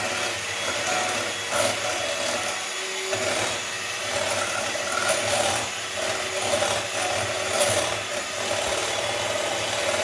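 Electric mixer running steadily, its beaters whipping eggs and sugar in a bowl to make the batter fluffy.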